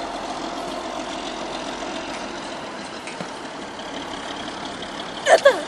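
A steady even background hum, with a short high-pitched voice cry near the end.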